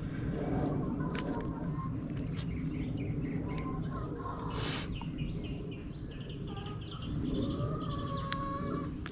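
Birds chirping and calling, with scattered small clicks and a brief hiss about halfway through.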